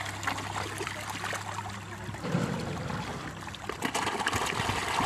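Water splashing and trickling continuously as a dense crowd of fish churns and thrashes at the surface.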